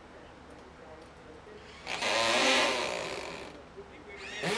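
A corded handheld power tool cutting into the bottom of a drywall wall. It makes one loud burst about two seconds in, which fades out over about a second and a half, and a short rising whine near the end.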